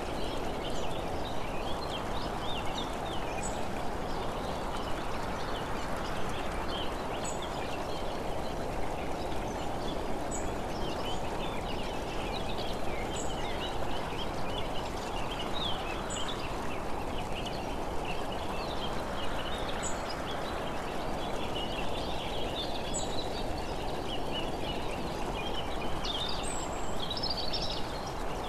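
Steady wind and road noise on a camera moving along a road, with birds chirping over it and a faint tick every few seconds.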